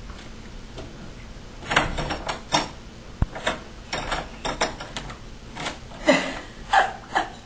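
Doorknob rattling and a closed interior door knocking as a toddler grabs, pushes and slaps at it: irregular clicks and knocks starting about a second and a half in, with one dull thump a little after three seconds.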